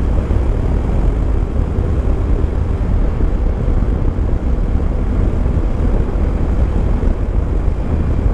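Yamaha Tracer 9 GT's 890 cc three-cylinder engine running steadily at road speed. Heavy wind rumble on the helmet-camera microphone covers much of it.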